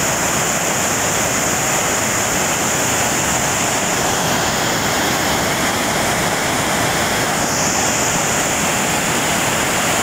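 Swollen rainy-season rapids rushing over rocks, a loud, steady wash of water noise.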